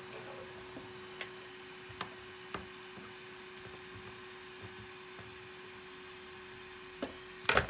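A steady electrical hum, with a few light clicks and one louder knock near the end from a laptop motherboard with its heatsink being handled and set down on a silicone repair mat.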